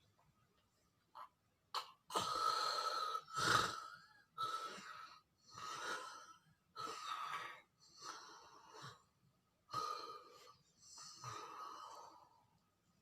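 A person snoring: a run of noisy breaths, in and out about once a second, starting about two seconds in.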